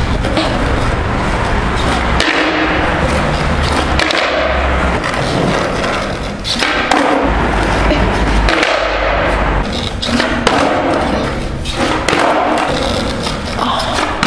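Skateboard wheels rolling over rough asphalt with a steady, loud rumble, broken by several sharp clacks of the board along the way.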